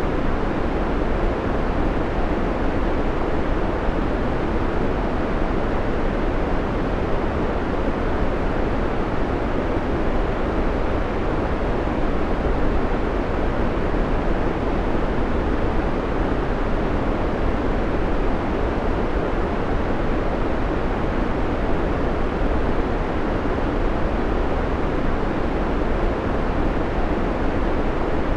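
Steady white noise: a constant, even rushing hiss with most of its weight in the low and middle range. It does not change.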